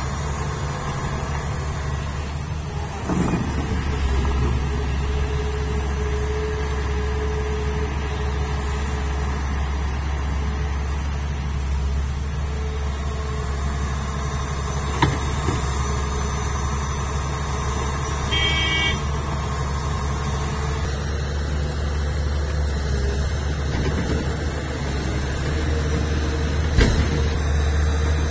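Heavy diesel engine of a Hitachi Zaxis 470H excavator running steadily while loading a dump truck, with rock thudding into the truck's steel bed a few times. A short high-pitched horn toot sounds about two-thirds of the way through.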